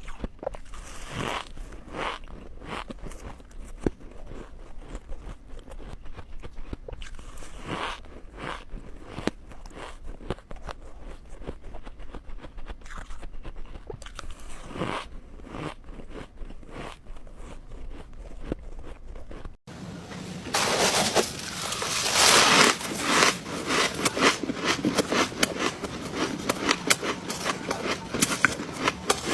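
Close-miked biting and chewing of ice: scattered sharp crunches at first, then after a sudden cut about two-thirds of the way in, denser and louder crackling crunches.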